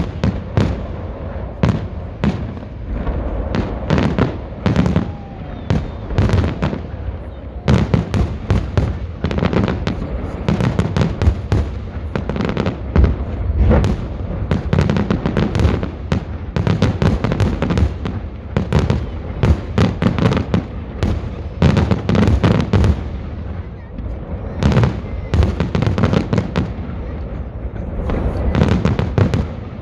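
Festive salute fireworks: shells bursting and crackling in rapid succession, several bangs a second over a continuous low rumble, with a short lull about two-thirds of the way through.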